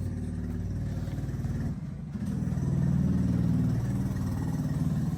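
Small motorbike engine running at low revs, dipping briefly about two seconds in and then growing louder.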